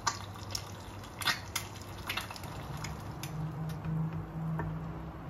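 A spatula scrapes and taps in a pan of kimchi fried rice as the rice is scooped out into a bowl, making a scattering of short clicks and scrapes. A low steady hum comes in about halfway through.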